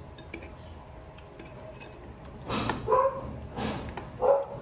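A dog barking about four times in the second half, short barks a little over half a second apart.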